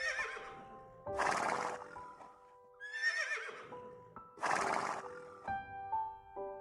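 A horse whinnies twice, each a wavering, falling call followed by a breathy snort, over piano music.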